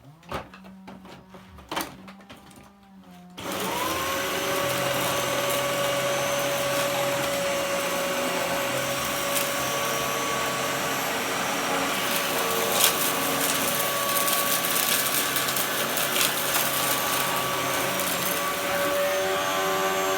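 Dyson DC04 upright vacuum cleaner switched on about three seconds in. Its motor spins up within about a second to a steady whine and keeps running while vacuuming. The brush-bar drive belt is broken.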